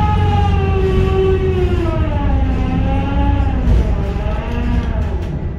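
Container gantry crane's electric drives whining over a steady low rumble, the whine sliding down in pitch over about three seconds, wavering, then fading near the end.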